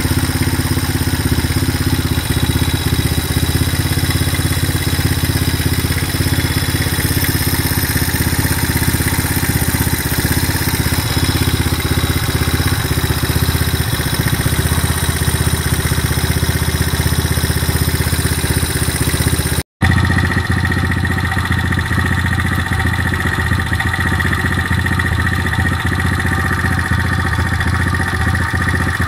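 Irbis TTR-125 pit bike's single-cylinder four-stroke engine idling steadily, with a fast clatter from the timing mechanism (valve train / timing chain): the extraneous noise the owner is trying to trace. The sound cuts out for an instant about twenty seconds in, then carries on.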